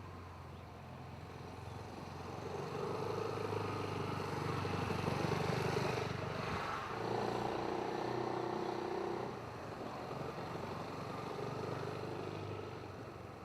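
BMW C400X scooter's single-cylinder engine running as the scooter rides by. It grows louder over a few seconds, shifts in pitch about halfway through, then fades back down near the end.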